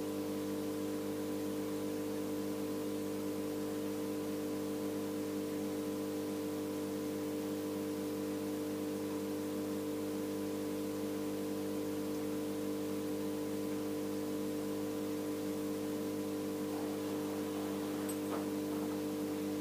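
Aquarium air pump running, a steady electric hum with a faint hiss behind it.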